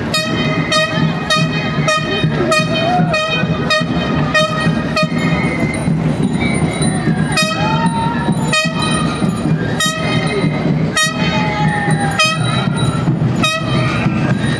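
Street procession music: a drum beating about one and a half times a second under a long, steady high-pitched tone, with voices calling out now and then.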